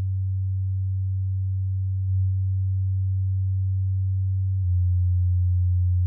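A steady low sine test tone from bookshelf speakers: 95 Hz through an Edifier R1280DB pair at first. About two-thirds of the way in it steps down to a slightly lower, louder 90 Hz tone, with a Microlab Solo 6C pair playing by the end.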